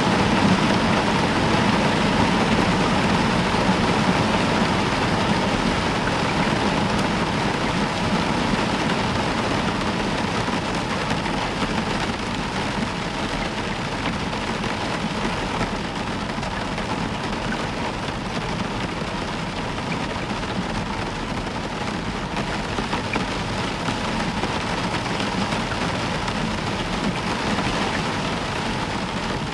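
Heavy rain falling steadily on a roof, with a low distant thunder rumble in the first ten seconds or so that slowly fades out.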